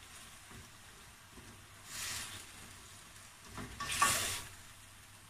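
Chicken and mushrooms sizzling in a stainless steel frying pan while a plastic spatula stirs them, with two louder scraping swishes of the spatula through the pan, about two seconds in and about four seconds in, the second the loudest.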